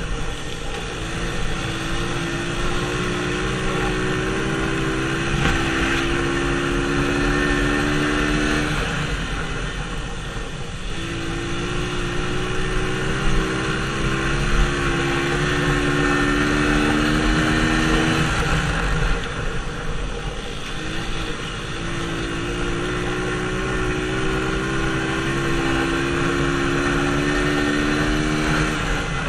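Dirt bike engine running hard around a short oval track, its pitch climbing slowly down each straight and falling away as the throttle is shut for the turns, three times, with wind rushing over the microphone throughout.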